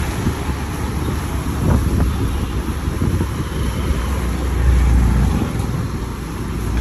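Wind buffeting the microphone on a moving motorcycle, a low rumble over the engine and tyre noise on the wet road; the rumble swells briefly about five seconds in.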